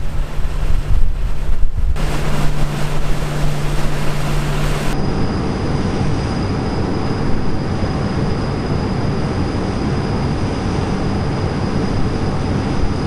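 Patrol boat running at speed: a steady low engine hum under the rush of its wake and spray, with wind buffeting the microphone. About five seconds in the hum fades and an even rush of water and wind is left.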